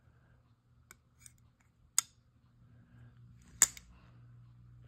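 Sencut Sashi button-lock folding knife being worked: a few faint clicks, then two sharp clicks about a second and a half apart, the second the loudest, as the blade snaps shut and open.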